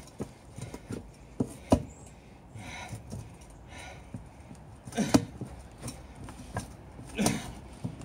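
Shoes stamping and shifting on a car tyre lying on its wheel, forcing the tyre bead down over the rim: a few sharp knocks, with puffs of breath and grunts of effort between them.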